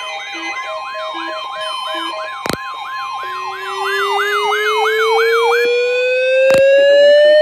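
Several NOAA weather-radio receivers sounding their alert alarms together, set off by the weekly test broadcast. A steady alert tone and a repeating falling warble, about three sweeps a second, run together until near six seconds in. A low two-note beeping stops about two seconds in. A slowly rising siren tone starts about three seconds in and grows louder, with sharp clicks twice.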